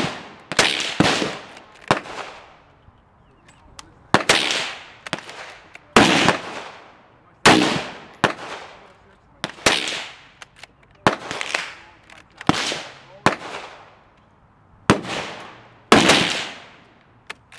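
A string of about fifteen rifle shots, irregularly spaced, some close together in pairs. Each is a sharp crack trailing off in a long echo.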